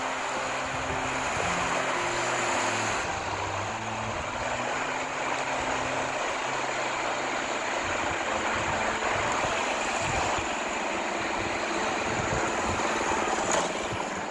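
Steady rushing of sea surf, with a low stepping melody of background music underneath.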